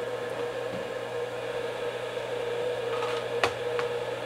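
A steady mechanical hum with a held tone, and a sharp click about three and a half seconds in, followed by a fainter one.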